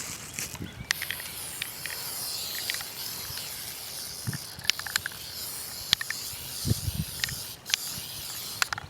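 Aerosol can of spray primer hissing in long passes, with a brief break about a second in and another near the end, while scattered light clicks and taps sound alongside.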